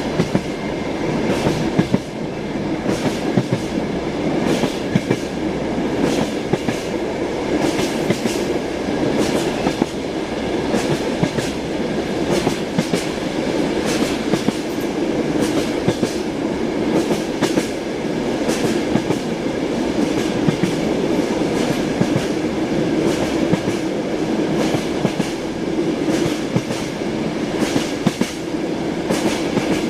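Train wheels clattering over rail joints, heard from inside a passenger carriage: repeated clicks and knocks over a steady running rumble.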